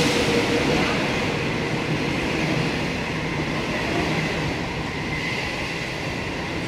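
25T passenger coaches of an intercity train passing at speed through a station: a steady rush of wheels on rail and moving air that slowly gets quieter.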